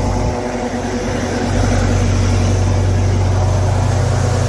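Engine of an engine-driven welder running steadily, with a brief dip in level about half a second in before it comes back up.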